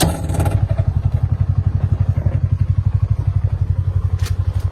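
A farm engine running steadily with an even, fast low throb, about a dozen beats a second. A short clatter comes right at the start.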